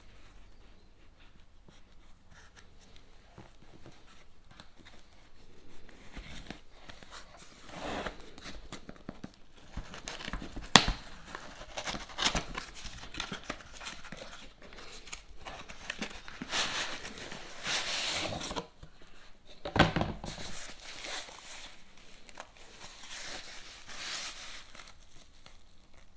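Packaging being handled and unpacked: irregular rustling and crinkling, with a few sharp clicks, the loudest about eleven and twenty seconds in.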